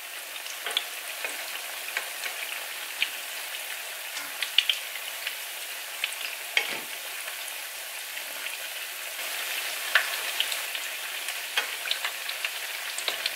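Zucchini fritters sizzling in hot olive oil in a frying pan, a steady hiss with scattered light clicks as a fork and spoon turn them.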